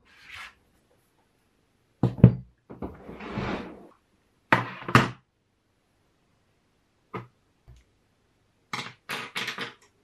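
Painting supplies being laid out on a wooden desk: short knocks and thuds in a few groups, with a brief scraping rustle between the first two.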